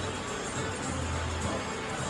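Background music with a steady low bass line.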